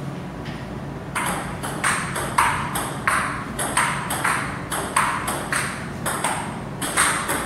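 Table tennis rally: a plastic ball clicking back and forth off the paddles and the table, about three hits a second, starting about a second in. A steady low hum runs underneath.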